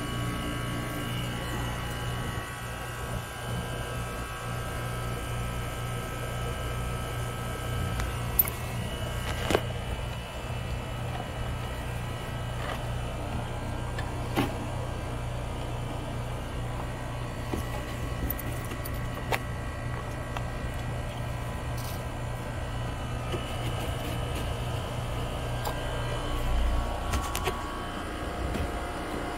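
Newly installed central air conditioner's outdoor condensing unit running during start-up checks: compressor and condenser fan give a steady hum, with a few light clicks of handling.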